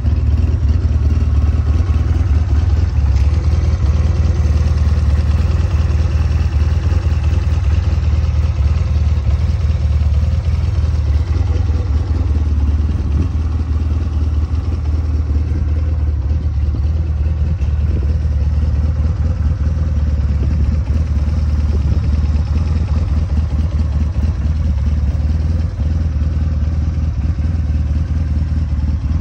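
The SMC Quadzilla CBT-250 quad's 250 cc engine is idling steadily with a low, even running note.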